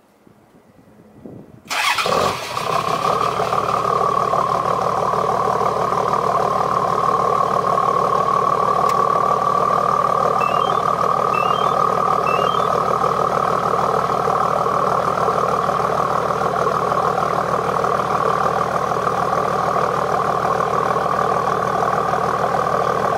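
Toyota Land Cruiser HDJ81's 4.2-litre 1HD-T turbo-diesel straight-six being remote-started: a brief crank, the engine catches about two seconds in, then settles into a steady idle on a cold winter start.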